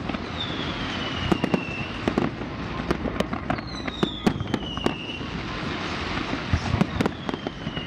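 Fireworks going off: many sharp bangs and pops of firecrackers, with three long whistles that fall in pitch.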